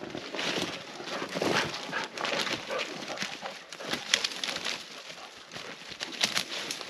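Footsteps and a dog moving through dry fallen leaves and cut brush: irregular rustling and crackling of leaves and twigs underfoot.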